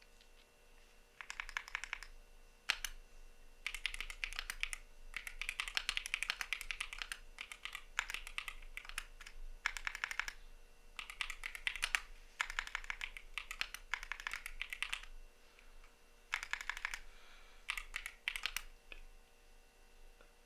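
Typing on a CIDOO V75 mechanical keyboard with Matte switches: runs of rapid keystrokes broken by short pauses, stopping about a second and a half before the end.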